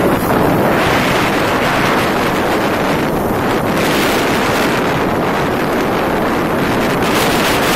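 Loud, steady wind buffeting the phone's microphone at riding speed, a continuous rush that covers any engine sound.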